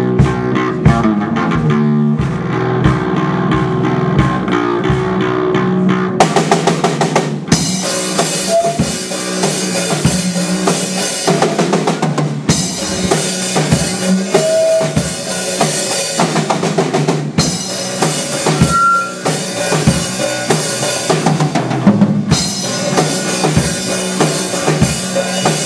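Rock band playing an instrumental passage: drum kit keeping a steady beat with bass drum and snare over bass and guitar. About six seconds in, cymbals come in and the full band plays on with a heavier, busier sound.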